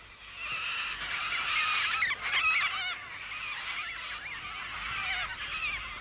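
A group of Major Mitchell's cockatoos calling, many wavering calls overlapping.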